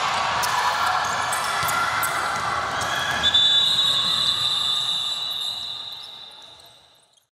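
Basketball game noise in a gym hall: a basketball bouncing and sharp knocks on the court over a busy background. From about three seconds in a steady high tone sounds, and then everything fades out near the end.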